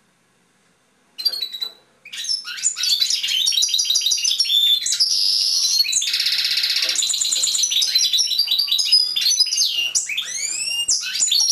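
European goldfinch singing. A short call comes about a second in, then from about two seconds a continuous fast song of twittering trills, with a buzzy stretch in the middle and sliding notes near the end.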